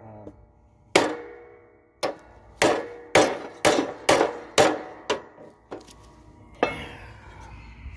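A body hammer strikes the steel mower deck about ten times, each blow clanging with a metallic ring: one about a second in, then a quick run of about two a second, then two weaker blows. The blows are beating a bent section of the deck back into shape so the blade stops catching on it.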